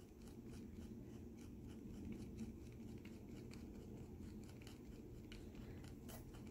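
Faint scratching and ticking of an X-Acto craft knife blade cutting through a diamond painting canvas to open up its air bubbles.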